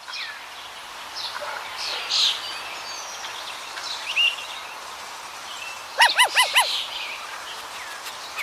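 Outdoor nature ambience: birds chirping now and then over a steady hiss. About six seconds in come four quick, loud, pitched calls in a row.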